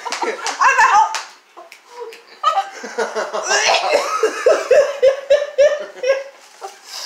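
Several people laughing hard together, in bursts of short repeated pulses.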